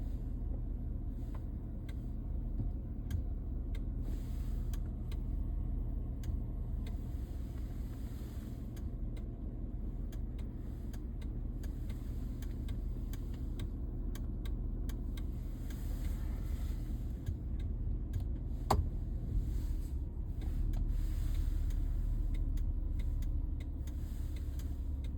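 Clicking from behind the centre dashboard of a 2008 Cadillac Escalade, set off by pressing the brake pedal: short, irregular clicks, one louder than the rest about three quarters of the way through, over the steady low rumble of the vehicle. The cause is unknown to the owner.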